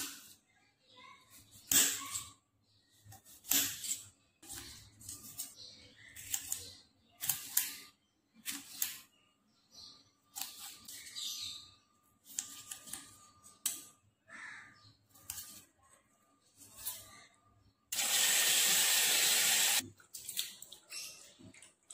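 Kitchen knife cutting tomatoes, its blade knocking on the counter in sharp, irregular strikes about once a second. Near the end a tap runs for about two seconds.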